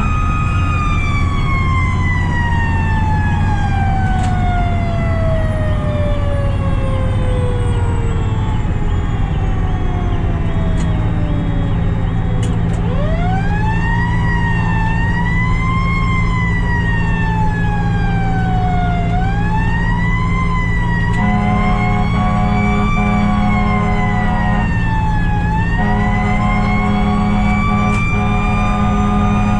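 Fire truck siren heard from the cab over steady diesel engine and road rumble. Its wail slowly winds down for about twelve seconds, then winds back up and rises and falls. Two long air horn blasts sound in the last third.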